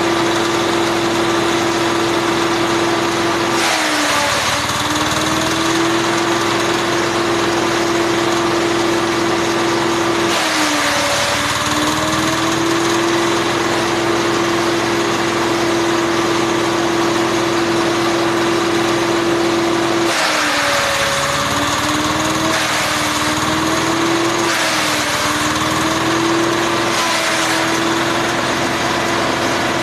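Forage chopper machine running at speed with a steady high hum, bogging down about five times as coconut fronds and stalks are fed in: each time a burst of shredding noise lasting a second or two, the hum's pitch dipping and then climbing back.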